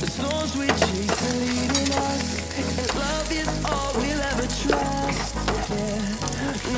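Pork sizzling as it dry-fries in a pan and is stirred, over background music with a steady bass line and melody.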